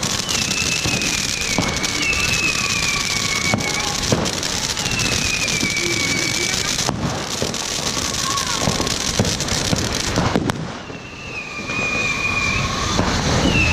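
Ground firework fountains spraying sparks with a steady hiss and crackle, and a falling whistle that comes back every few seconds. The hiss drops away briefly near the end, then picks up again.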